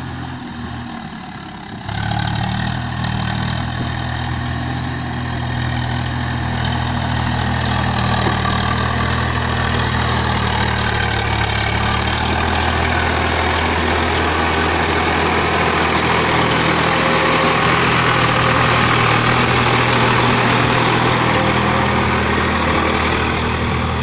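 Swaraj 744 tractor's diesel engine running steadily under load as it hauls a fully loaded trolley, getting louder as it draws near and passes close by. There is a sudden step up in loudness about two seconds in.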